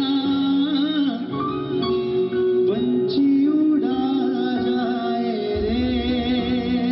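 Live band music over a PA with a man singing long, ornamented held notes into a microphone; a deep bass comes in near the end.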